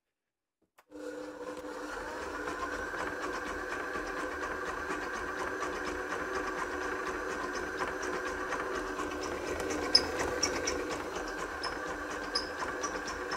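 Kenwood Titanium Chef Baker XL stand mixer starting up about a second in and running steadily, its motor and gearing humming with several steady tones as the creaming beater turns in the empty stainless-steel bowl. A few light clicks come in near the end.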